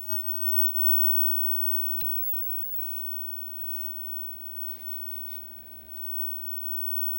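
Steady electrical mains hum with a constant tone from the switched-on vintage black-and-white tube TV. Two sharp clicks, one just after the start and one about two seconds in, and a few brief scratchy rustles of handling.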